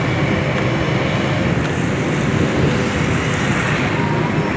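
Steady road traffic noise, with motorcycle and car engines running close by.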